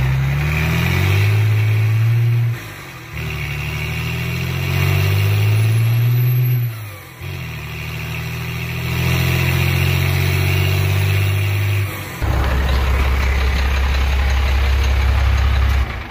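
Truck engine accelerating hard through the gears of an NV4500 five-speed manual gearbox, sounding crispy. Its pitch climbs in each gear and drops at upshifts about 2.5, 7 and 12 seconds in, then holds steady in the last few seconds.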